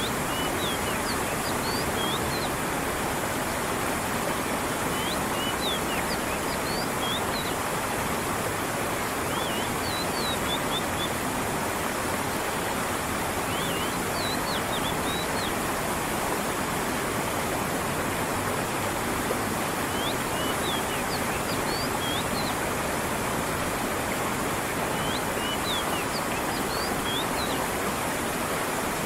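Creek water running and falling steadily, with a bird singing short, high chirping phrases every four to five seconds.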